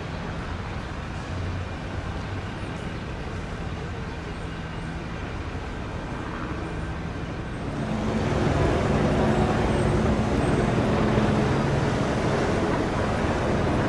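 Steady outdoor traffic noise, then about eight seconds in a helicopter's drone comes in louder overhead as a steady low hum of engine and rotor that holds to the end.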